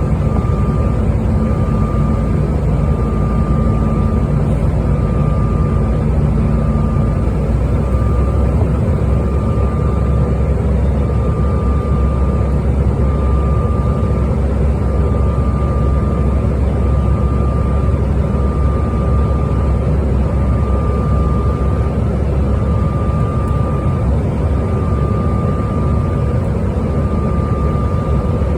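Airliner cabin noise in flight: a loud, steady rumble and rush of the engines and airflow. A faint high tone breaks on and off about once a second, and about seven seconds in, the low engine hum shifts lower in pitch.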